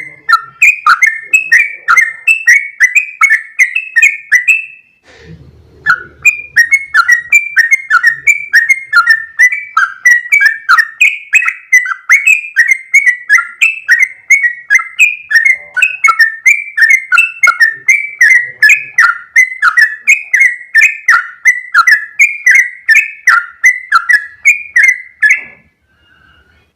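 Yellow-vented bulbul (trucukan) singing a long, fast run of chirped, bubbly notes, several a second. The run breaks briefly about five seconds in, with a low rumble, then continues and stops just before the end.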